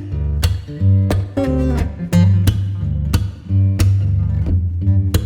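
Background music: acoustic guitar strumming over a steady bass line.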